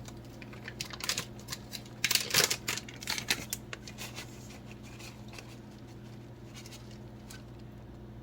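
Shredded mozzarella being scattered by hand over bread: soft rustling and small clicks, busiest in the first three seconds or so, then thinning to a few scattered ticks.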